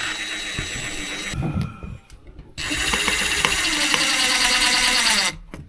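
Power drill driving a screw in to fasten a fitting, run in two goes: a short burst, then a longer run of about three seconds whose pitch falls just before it stops.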